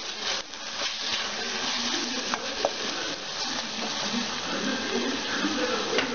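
Wooden spatula stirring a thick masala paste in a pot, with a few short scrapes, while the masala sizzles as it fries.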